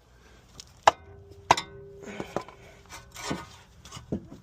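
Sharp metal-on-metal clinks and knocks as tools and suspension parts are handled. There are two loud ones about a second and a second and a half in, the second ringing briefly, then softer knocks and scraping.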